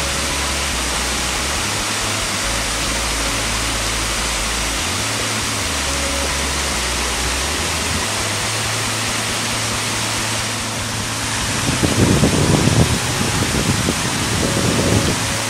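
Water pouring over a small weir into a stream: a steady rush of falling water. About eleven seconds in it changes to a shallow stream running over stones, louder and more uneven in the low range.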